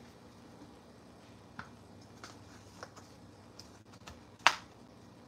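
Light, scattered clicks and taps of kitchen items being handled while gizzards are seasoned at a stainless steel sink, with one sharper knock about four and a half seconds in.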